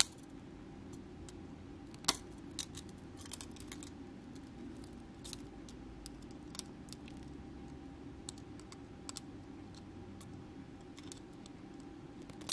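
Scattered light clicks and taps of jewelry pliers working wire and beads into an earring loop, with one sharper click about two seconds in, over a faint steady hum.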